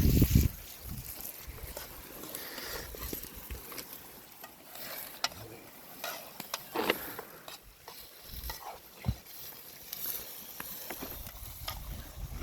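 Irregular clicks, scrapes and knocks of food being handled and stirred, over a light hiss, with a loud thump right at the start.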